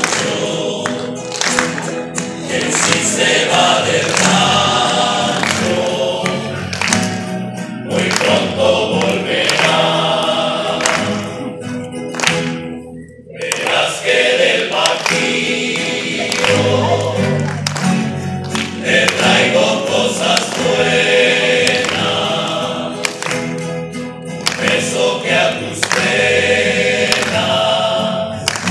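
A rondalla, a group of men's voices singing in harmony to many strummed acoustic guitars and a double bass. The music drops out briefly near the middle, then picks up again.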